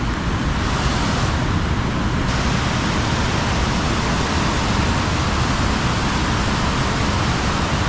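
Water pouring over a low-head dam spillway and churning in the tailwater below: a steady, even rush with no break.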